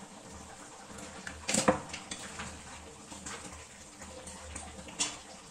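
A metal ladle stirring chicken curry in an aluminium kadhai, with a sharp metallic clank about one and a half seconds in and a lighter one near the end. A steady hiss from the pot cooking runs underneath.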